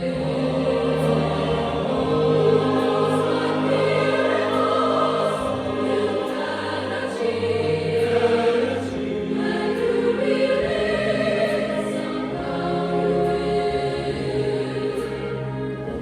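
A choir singing a slow piece in held, sustained chords that change every second or two.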